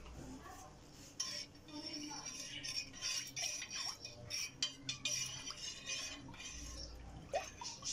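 A steel spoon stirring thin liquid in a metal pot: sloshing, with repeated clinks of the spoon against the pot, starting about a second in.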